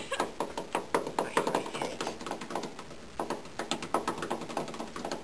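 A rapid, irregular series of light taps and clicks, several a second.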